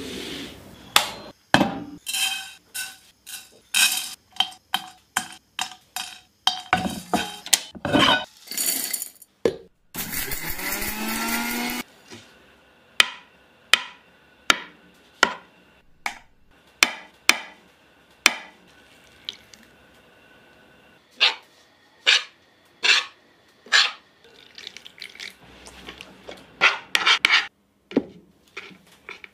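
Metal spoon clinking and tapping against a plate as spices and powders are added, one sharp clink about every second. Near the middle comes a whirr of about two seconds from an electric mixer grinder grinding the whole spices into masala.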